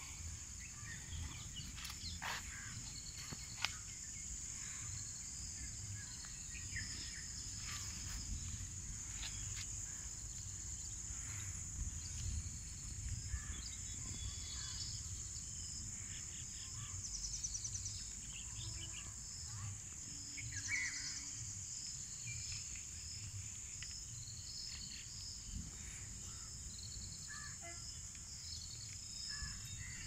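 Steady, shrill chorus of insects calling without a break, with short repeated chirps cutting in and out over it and a low rumble underneath.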